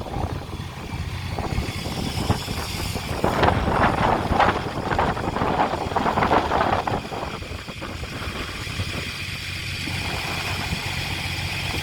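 Off-road 4x4's engine running, growing louder for a few seconds in the middle, then settling back to a steady rumble.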